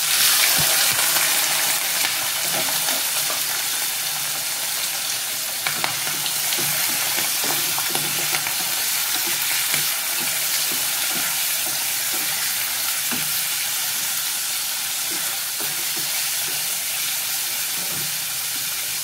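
Raw goat liver pieces sizzling in hot mustard oil in a kadai, loudest in the first second as they go in, then settling to a steady sizzle. A wooden spatula stirs them, with scattered light scrapes and knocks against the pan.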